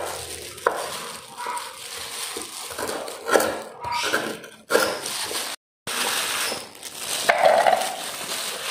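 Irregular crunching with small clinks as raw galangal is cut and handled in the kitchen.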